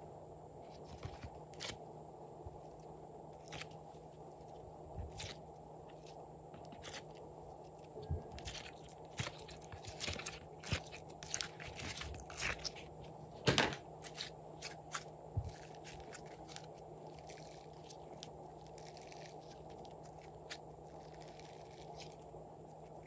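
Glossy slime being peeled out of a silicone mould and handled, giving irregular sticky clicks and crackles that come thickest through the middle, over a steady low hum.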